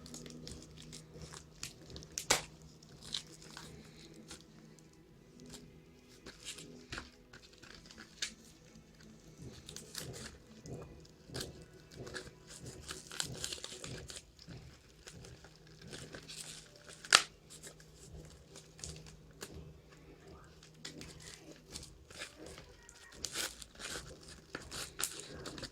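Tape and a plastic shipping wrapper being torn and crinkled open by hand, with many scattered crackles and clicks. Two sharp snaps stand out, about two seconds in and about seventeen seconds in.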